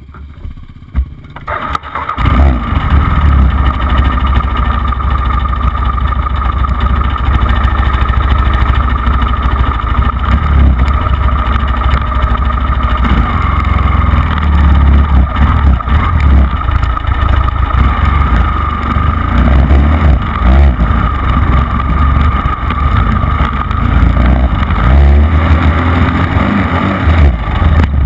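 Dirt bike engine running loud close to the handlebar, jumping up in level about two seconds in and idling with uneven throttle blips, then revving harder as the bike pulls away near the end.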